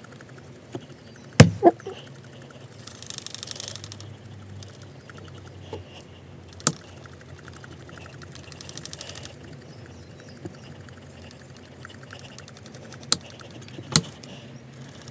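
Electrostatic static grass applicator loaded with grass fibres being shaken: a low steady hum with two short spells of fine, fast rattling buzz, and several sharp clicks, the loudest about a second and a half in and a pair near the end.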